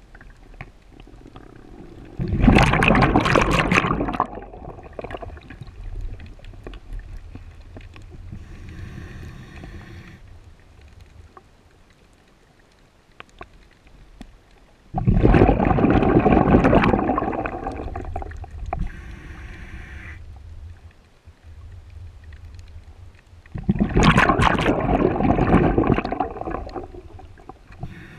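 A scuba diver breathing on a regulator underwater: three long bubbling exhalations, roughly ten seconds apart, with quieter regulator hiss of inhalation between them.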